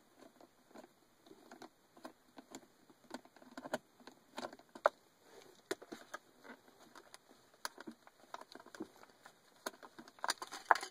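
Light, irregular clicks and rattles of a 7 mm socket on a long extension being worked on the console screws, with a busier cluster of clicks near the end.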